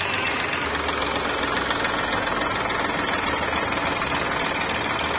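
A farm tractor's diesel engine running steadily, with a low knocking chug, while the tractor is held in reverse.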